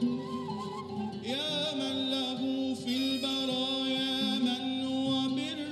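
Live Arabic traditional ensemble music, with steady held notes underneath and a violin playing a wavering melodic line with vibrato from about a second in.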